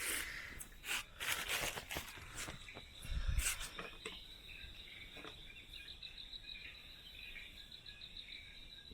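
Night insects trilling, a steady high-pitched chirr that pulses in the second half. Rustling and handling clicks with a low thump come over it in the first few seconds.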